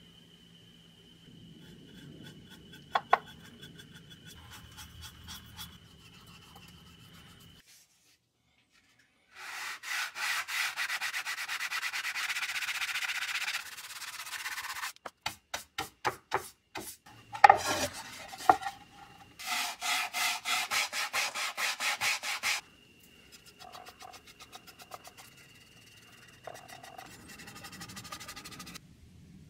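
Sandpaper on a sanding block being rubbed by hand over a thin wooden chair seat-back panel in fast back-and-forth strokes, in two runs of a few seconds each. A few single strokes and sharp knocks fall between the runs, and the start and end are quiet.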